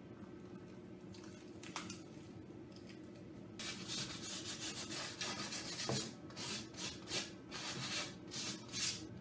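Hand-held pad rubbing back and forth across the face of a thin wooden guitar top, quiet at first, then a quick run of scrubbing strokes, about two or three a second, from about a third of the way in.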